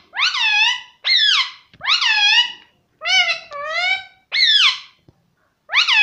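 Indian ringneck parakeet giving a run of about seven loud calls, each under a second long and rising then falling in pitch, with short gaps between them.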